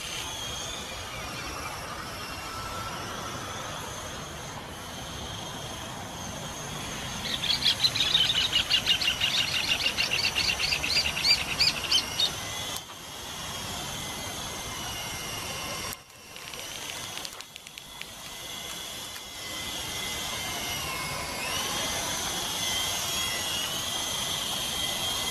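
Small electric coaxial RC helicopter whining in flight, its motor pitch rising and falling. About a third of the way in, a bird's rapid chirping trill lasts about five seconds, louder than the helicopter.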